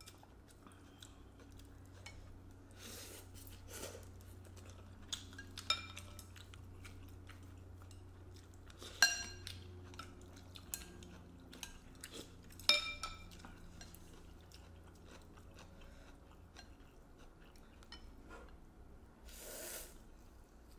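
Chopsticks and spoons clinking against ceramic bowls, the two loudest clinks ringing briefly, with soft chewing between them. Near the end comes a short slurp of noodles. A low steady hum runs underneath.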